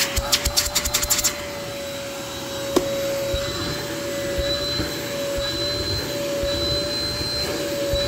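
Electrolux upright vacuum cleaner running steadily with a constant motor whine. A quick run of clicks plays over it in the first second or so, and a single knock comes about three seconds in.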